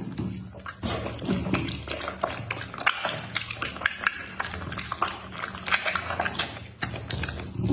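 Dog chewing raw meat and smacking its lips: a dense run of quick, uneven clicking mouth sounds.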